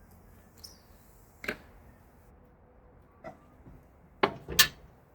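A few separate knocks and clanks of tools and parts handled while working on a car's exhaust, the loudest two coming close together near the end.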